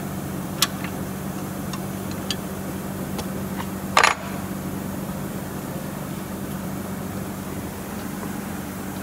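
A few sharp metallic clicks and one louder clank about four seconds in, typical of hand tools knocking against metal during car repair work, over a steady low hum.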